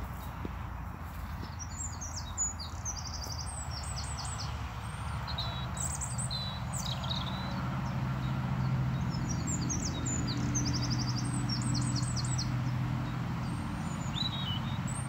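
Several songbirds singing in the countryside, a mix of chirps and quick repeated trills over a steady outdoor hiss. A low, steady drone swells in the background from about halfway through.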